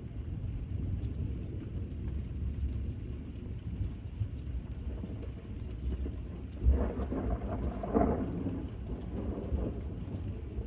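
Steady rain with a low, continuous rumble of distant thunder. About seven seconds in, a louder thunderclap breaks out and rumbles for two or three seconds before dying back.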